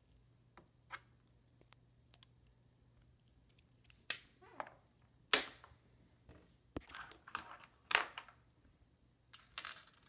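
Small plastic clicks, knocks and brief scraping rustles from a mechanical pencil being handled and set down on a wooden desk, mixed with handling noise on the phone's microphone. Sparse light clicks in the first seconds, then several louder scrapes and knocks from about four seconds in.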